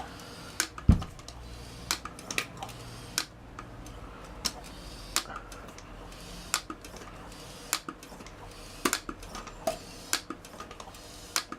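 Irregular light clicks and taps of hands and tools working on a motorcycle wheel, with one heavier thump about a second in.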